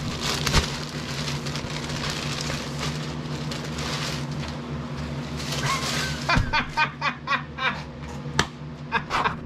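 Plastic mailer bag and tissue paper rustling and crinkling as a package is unwrapped by hand, with a run of quick, sharp crinkles in the last few seconds. A steady low hum runs underneath.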